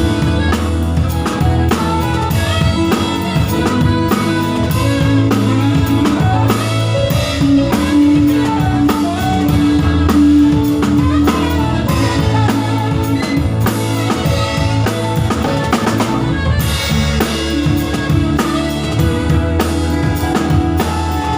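Loud music with a steady drum-kit beat, bass and guitar played through a PA sound system during a sound check.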